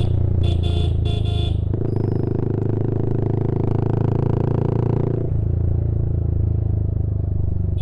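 Yamaha R15 V3's single-cylinder engine running through an Akrapovic M1 aftermarket exhaust, a steady low exhaust note that swells fuller and louder from about two seconds in until about five seconds in, then settles back.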